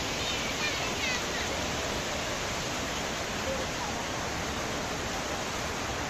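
Chaparai waterfall's water rushing steadily.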